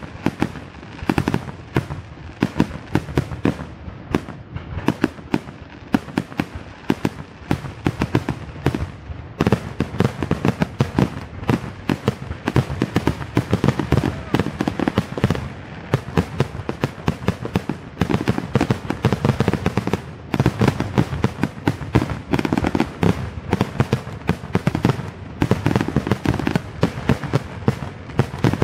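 Aerial fireworks bursting in a dense barrage, with bangs and crackles following one another several times a second without a pause.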